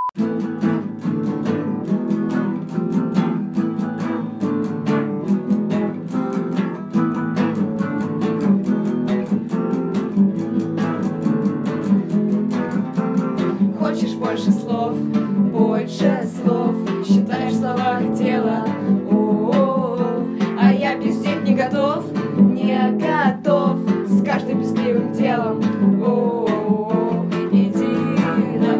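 A nylon-string acoustic guitar strummed steadily with a bass guitar underneath, and female singing joining about halfway.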